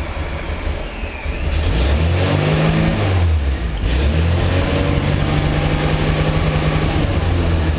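Carbureted car engine running: it idles, its revs rise about a second and a half in, drop back briefly around three seconds, then rise again and hold at a steady higher speed while the carburetor is being adjusted.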